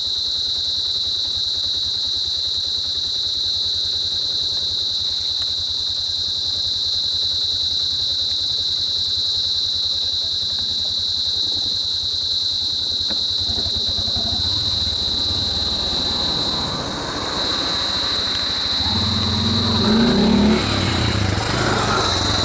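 A steady high-pitched insect drone over the low hum of a vehicle engine idling. About three quarters of the way through, the engine gets louder and rougher.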